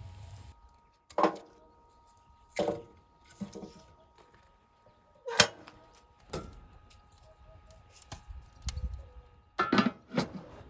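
Metal cookware clinking and clanking: several separate sharp knocks with a ringing tail, ending with a double clank near the end as a heavy cast-iron lid is set on the cast-iron pot.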